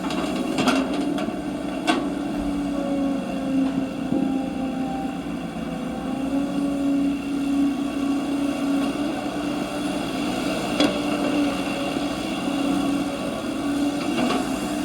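Radio-controlled construction models' electric motors running with a steady whine that wavers slightly in pitch, with a few sharp clicks.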